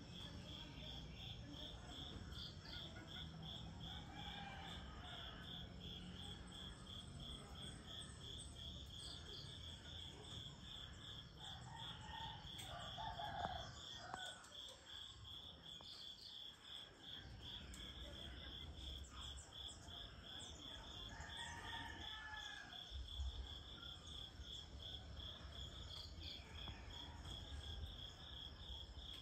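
Faint dawn chorus of insects: a steady, high, evenly pulsing chirring, with distant roosters crowing a few times.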